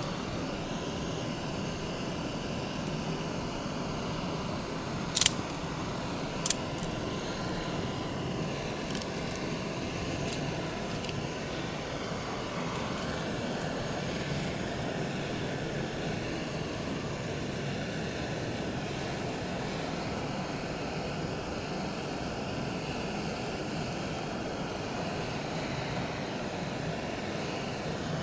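River water flowing steadily, a continuous even rush, with two sharp clicks about five and six and a half seconds in.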